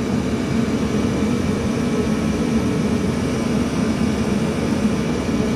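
Protemp diesel heater cannon running steadily, its burner and fan giving an even, continuous noise with a low hum.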